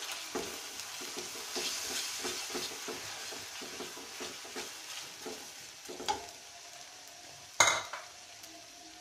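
Onions and chilli garlic sauce sizzling in a nonstick frying pan while a silicone spatula stirs and scrapes them in quick strokes. The stirring thins out after about five seconds, and a single sharp knock comes near the end.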